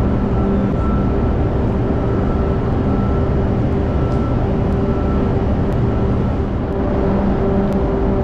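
Steady, loud machinery drone filling a ship's enclosed vehicle deck, a deep rumble with a constant hum over it.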